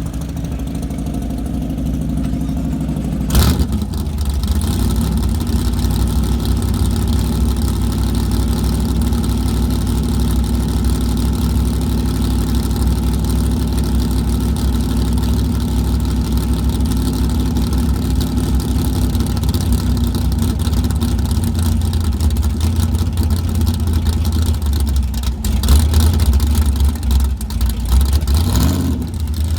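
2017 COPO Camaro's V8 engine idling with a heavy low rumble. About three seconds in there is a sharp crack, after which it runs louder. It is revved a couple of times near the end.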